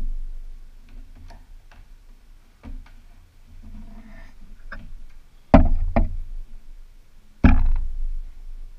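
Light clicks and knocks of a thin white plastic armour piece being handled and turned over on a countertop, with three louder knocks in the second half.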